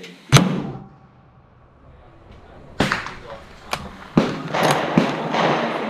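A single shot from a .300 Winchester Magnum bolt-action rifle with a muzzle brake, heard as a sharp, very loud crack about a third of a second in, with a brief decaying echo. From about three seconds in come several clicks and knocks of the rifle being handled, as the bolt is worked.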